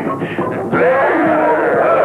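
Background music, dense and many-toned, growing fuller and louder about three-quarters of a second in.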